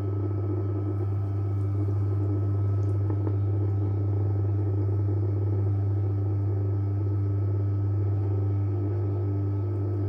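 JW Ratcliffe and Sons R84 electric pottery wheel running, its motor giving a steady electric hum.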